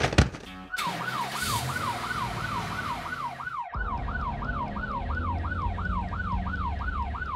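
Police siren sounding in quick, repeated falling sweeps, about two and a half a second, starting just under a second in, over a low rumble.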